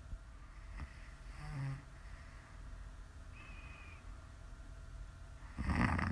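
A woman snoring in her sleep: a short low snore about a second and a half in, then a louder snore starting near the end. A brief, thin, high whistling tone sounds midway.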